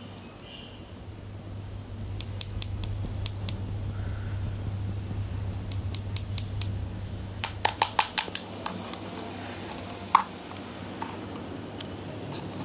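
Slime being pressed and stretched by hand, giving quick runs of sharp popping clicks, five or six at a time, three times over, then one louder pop.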